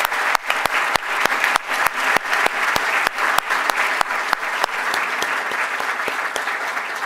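An audience applauding steadily in a large hall, with a number of single sharp claps standing out from the dense clapping, more of them in the first few seconds.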